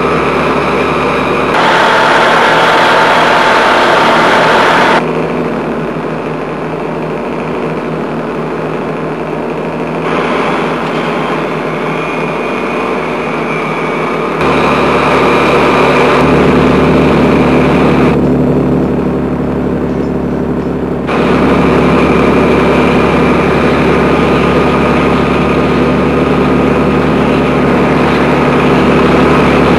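Car and heavy diesel truck engines running at highway speed on a film soundtrack. The engine tone and loudness change abruptly several times, with a quieter stretch from about 5 to 14 seconds in and a louder, deeper stretch near the end.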